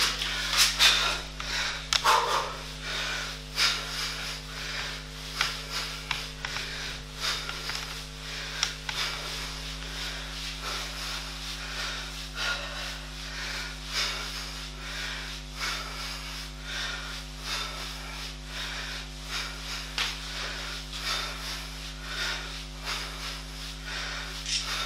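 A man breathing hard and rhythmically through exercise, with short sharp exhalations about once or twice a second. A steady low electrical hum sits underneath.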